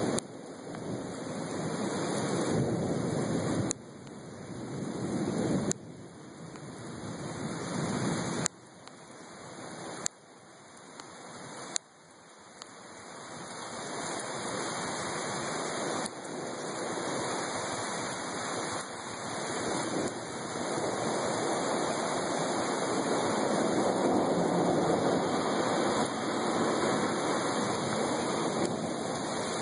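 Heavy rain falling in a steady downpour. In the first dozen seconds the sound cuts down sharply several times and swells back up each time, then it holds steady.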